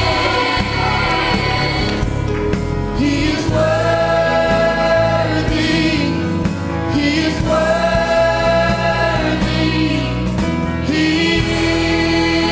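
Mixed choir singing a gospel worship song in long held notes.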